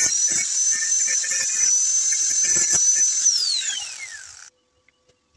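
Angle grinder running at full speed with a steady high whine, grinding against steel square tube. About three seconds in it is switched off and its whine falls as the disc spins down, then the sound cuts off.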